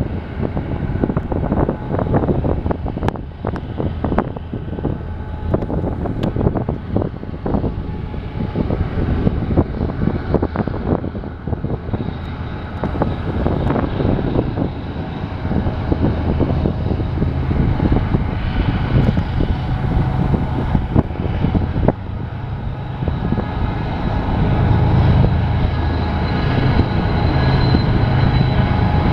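BNSF diesel-electric freight locomotives running, a steady low engine drone that grows louder in the last few seconds.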